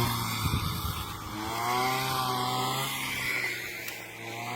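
Brush cutter's small two-stroke engine running, its pitch swelling up and falling back about halfway through as the throttle is worked during cutting rice stalks.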